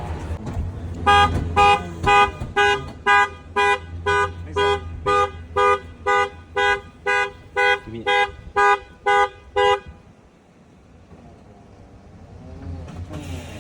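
A car horn honking in a steady, even rhythm, about two short honks a second, eighteen in all, then stopping, the on-off pattern of a car alarm going off.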